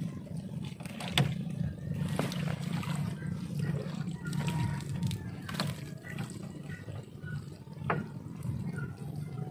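Seawater sloshing and splashing, with a few sharp knocks scattered through it.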